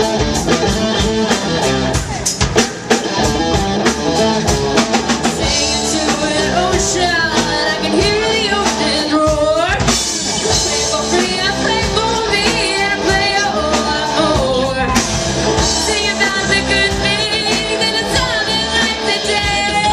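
Live rock band playing: a woman singing over two electric guitars, a bass guitar and a drum kit. The instruments play alone at first, and the vocals come in about six seconds in.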